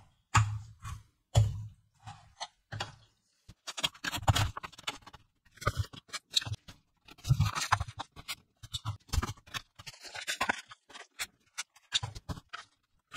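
Small plastic spring clips with bear-face covers and a metal coil spring being handled, opened and snapped shut onto stacks of paper sheets: a rapid run of sharp plastic clicks mixed with paper rustling and scraping.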